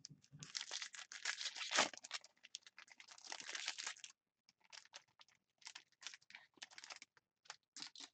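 Crinkling and tearing of a trading-card pack wrapper, dense for about four seconds, then lighter, scattered crackles and clicks as the cards are handled.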